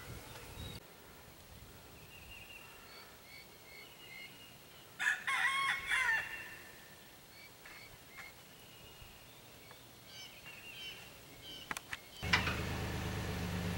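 A rooster crows once, about five seconds in, over quiet outdoor ambience with small birds chirping. Near the end a steady low motor hum starts up.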